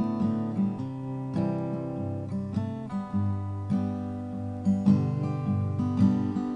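Acoustic guitar picking and strumming chords in the key of G: the instrumental introduction of a slow country ballad.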